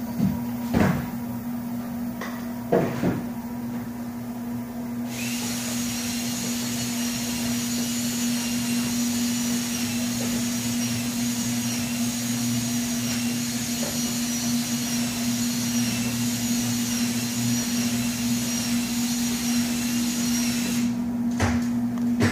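Steady hum from a 2004 Hendricks CNC router and its equipment, with a few knocks in the first three seconds. About five seconds in, a hissing noise with several high whining tones comes on; it runs steadily and cuts off about a second before the end.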